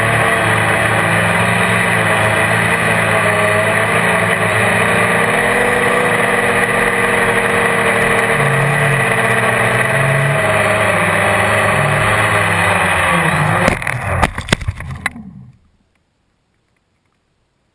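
GAUI QuadX quadcopter's electric motors and propellers running steadily, heard from its onboard camera, with several whining tones that waver as it flies. About fourteen seconds in, a short run of irregular crackles and knocks, then the sound cuts off completely.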